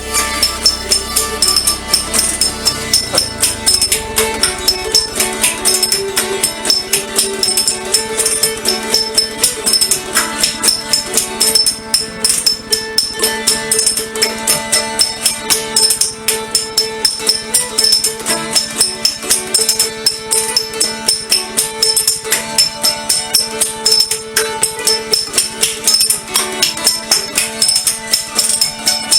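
Background music with a steady, fast percussion beat over sustained tones.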